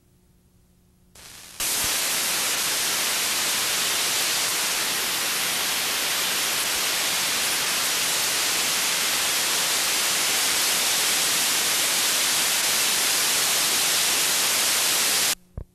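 Loud, steady hiss of white-noise static from videotape playback over a blank, unrecorded stretch of tape. It comes in abruptly about a second and a half in and cuts off suddenly near the end, followed by a short pop.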